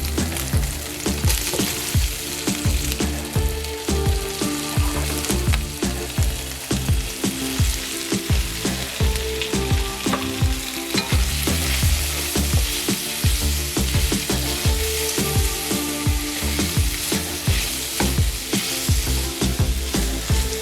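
Food sizzling as it fries in hot oil in a pan, a steady crackling hiss throughout. Background music with a steady beat plays underneath.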